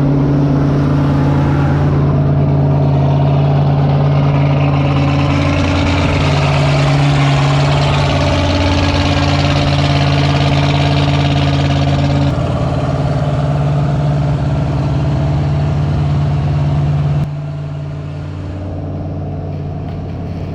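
Chevy small-block V8 boat engine running, its speed shifting up and down in steps several times and settling lower about three-quarters of the way through.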